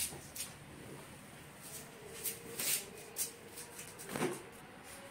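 A fabric bike cover rustling and swishing as it is pulled and gathered off a motorcycle, in a series of short, faint swishes.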